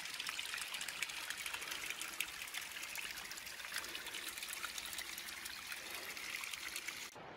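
Rainwater runoff trickling and splashing steadily down the mountain slope after a night of heavy rain. It cuts off suddenly near the end.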